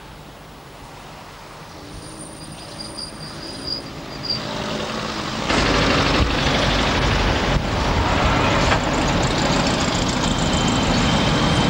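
City street traffic heard from a car: engines and tyre noise of buses and cars, with a faint high whistle about two to four seconds in. About five and a half seconds in, the sound suddenly becomes much louder and stays loud and steady as a bus and van pass close alongside.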